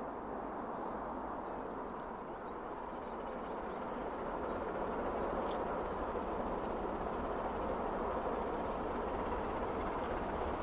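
Steam train approaching: a steady rushing rumble that grows slowly louder.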